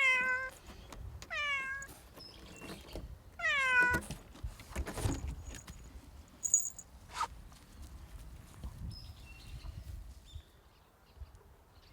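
Domestic cat meowing three times in the first four seconds, each meow sliding down in pitch, the last one the loudest.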